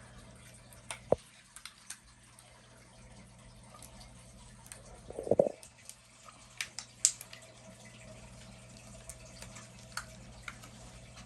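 Handling noises as a short piece of PVC pipe is stuffed down inside a rubber balloon: scattered sharp clicks and taps, with a louder rubbing, squeaky burst of stretched balloon rubber about five seconds in.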